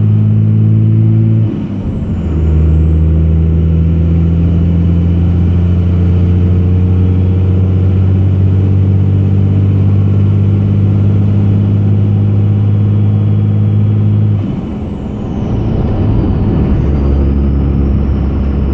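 2002 Cummins 24-valve diesel pulling hard under acceleration, heard from inside the cab, its note climbing steadily with a faint high whine. About a second and a half in and again near the end the engine note breaks and comes back lower, as at a gear change. This is the load at which the owner hears an intermittent knocking or thumping from the engine, which goes away with the clutch in or off the pedal.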